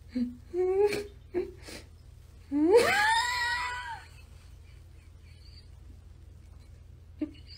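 Domestic cat vocalising: a few short chirps in the first second and a half, then one long meow that rises in pitch and holds, about three seconds in.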